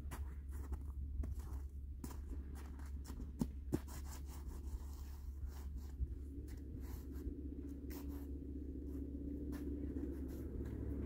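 Irregular crackling and crunching of snow over a steady low rumble. A rising rush of noise begins near the end.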